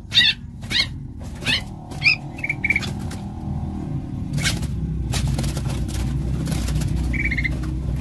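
A caged bulbul giving short, harsh calls in quick succession, about two a second, as it is being caught by hand, stopping about two seconds in; a couple of short high notes follow, and a brief trill comes near the end, over a low rumble of handling.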